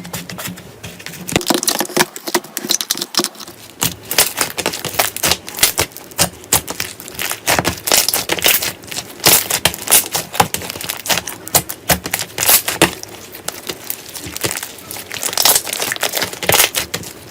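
Slime being squeezed and poked by hand, giving dense, irregular crackling and clicking pops.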